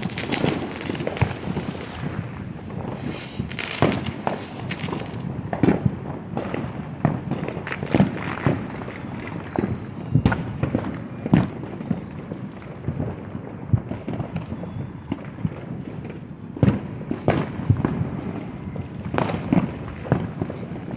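Many fireworks going off: single sharp bangs at irregular intervals, a dense patch of crackling pops a few seconds in, and faint falling whistles near the end.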